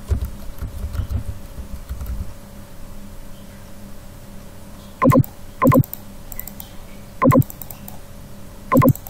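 Computer keyboard keys tapped as a number is typed in. Four short, loud pitched tones come about five, six, seven and a half and nine seconds in, and they are the loudest sounds.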